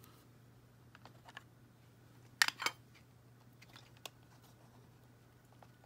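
Small plastic clicks and taps from hands handling a miniature toy espresso machine and its removable top, with the sharpest pair of clicks about two and a half seconds in, over a faint low steady hum.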